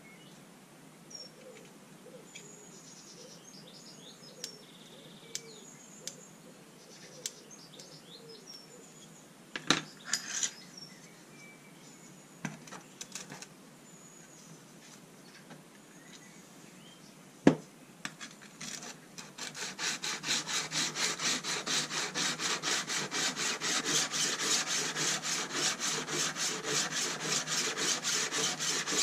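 Steel scissor blade drawn back and forth on a diamond sharpening plate. After a few light clicks as the blade is set on the plate, a steady run of rasping strokes starts about two-thirds of the way in, at roughly three strokes a second.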